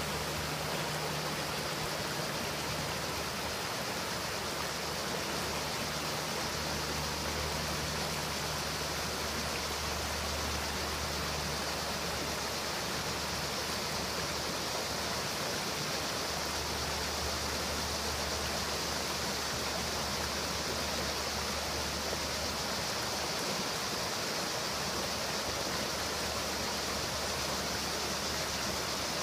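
Shallow creek water running over rocks in a small riffle: a steady, even rushing.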